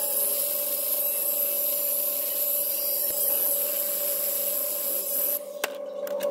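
Cutoff wheel running with a steady whine and hiss as it cuts into the retaining collar of a Suzuki Samurai rear axle bearing. It stops abruptly about five seconds in, followed by a few sharp clicks.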